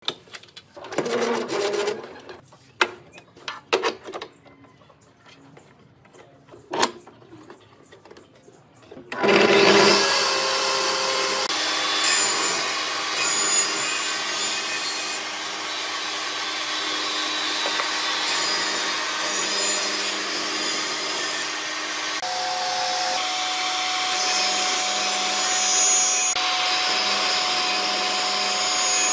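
A few light clicks and knocks as the table saw's rip fence is set. Then a power saw starts suddenly and runs steadily, cutting through a wood block. Near the end a band saw is cutting wood, with a new steady whine over the noise of the cut.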